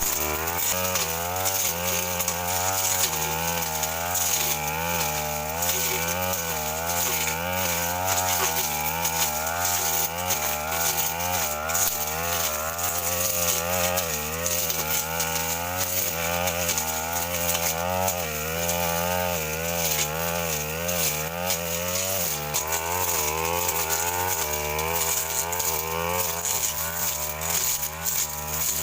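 Stihl FR 3001 backpack brushcutter's two-stroke engine running at high revs, its pitch dipping and rising again and again as the blade bites into woody saplings and grass.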